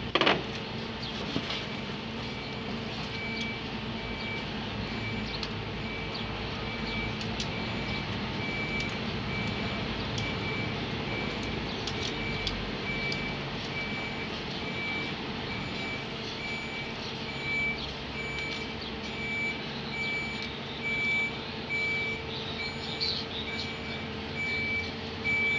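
A vehicle's reversing alarm beeping steadily in a regular series of short high beeps, over a steady engine hum. There is one sharp knock right at the start.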